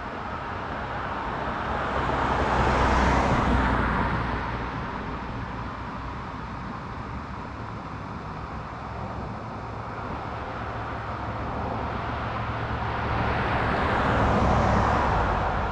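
Road traffic: two vehicles pass, each a swell of tyre and engine noise that builds and fades over several seconds, the first about three seconds in and the second near the end, over a low steady hum.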